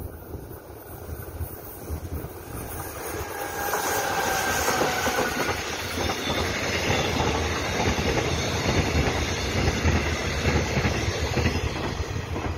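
Seven-car Mugunghwa-ho passenger train hauled by an electric locomotive, passing close by. The wheel-on-rail rumble builds as it arrives, with a faint whine about three to five seconds in, then stays loud and steady as the carriages go past.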